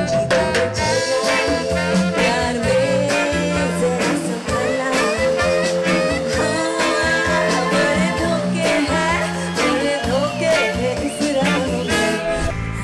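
A woman singing a Bollywood classic reworked as jazzy swing, backed by a live band with electric bass guitar and sharp, regular percussion hits.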